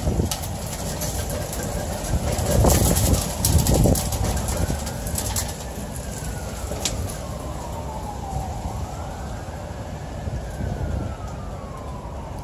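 Steady rain hiss, with louder low rumbling between about two and four seconds in. From about halfway, an emergency-vehicle siren wails slowly up and down twice, faint under the rain.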